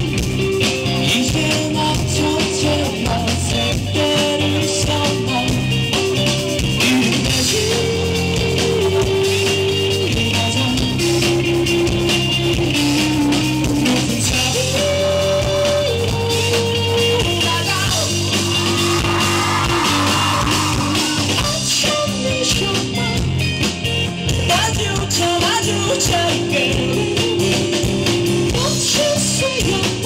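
Live rock band playing: a male singer sings a slow, held melody over electric guitar and full band.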